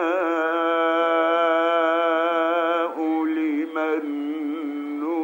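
A man reciting the Quran in the drawn-out melodic (mujawwad) style, holding one long note for about three seconds to end the word "nashā'", then starting the next phrase.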